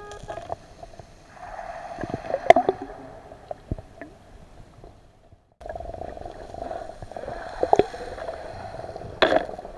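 Underwater ambience through a camera housing: a steady muffled hiss with a few sharp clicks and knocks, the loudest a little over two seconds in. The sound drops out briefly around the middle.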